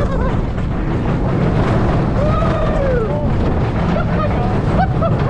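Rush of wind on the microphone and the rumble of a spinning roller coaster car running along its steel track. A rider's voice calls out once about two seconds in, rising then falling in pitch.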